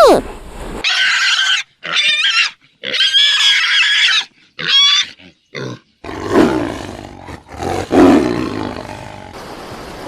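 Animal calls cut together from separate clips: several short, high, wavering squeal-like calls with silent gaps between them, then from about the middle a lower, rough, growl-like call.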